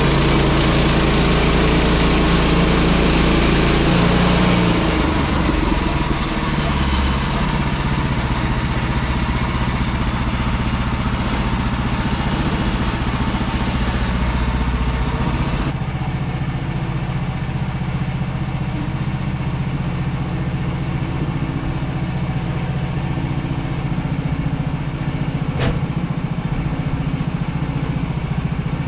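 Woodland Mills HM126 portable band sawmill running: its gas engine at speed with the band blade sawing eastern white pine. The high hiss drops away abruptly about sixteen seconds in, leaving the steady engine running.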